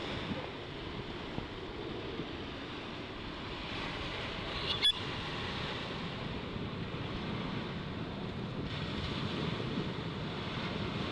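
Sea surf washing onto a sandy beach: a steady rush of noise, with one brief sharp click about five seconds in.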